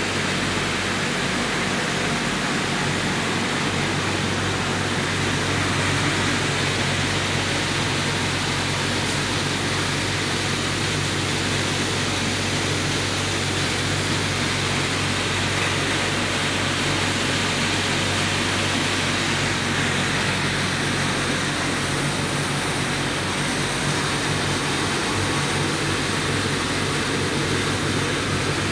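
Steady din of PCB recycling plant machinery running: a constant low hum under an even hiss, with no breaks.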